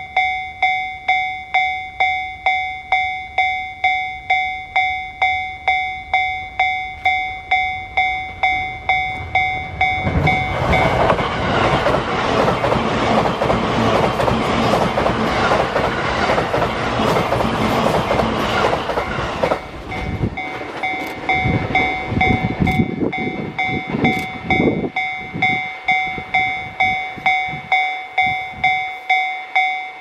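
Level-crossing warning bell ringing steadily, just under three strikes a second. About ten seconds in, a JR East E657 series electric limited express rushes past close by for about ten seconds. Its loud wheel and running noise, with a rhythmic clickety-clack, drowns out the bell. The bell keeps ringing as the train's rumble fades away.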